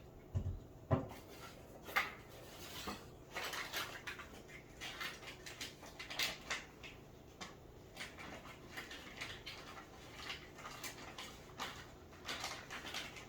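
Woodpecker pecking at wood: irregular sharp taps, a few a second, with a couple of louder, duller knocks in the first second.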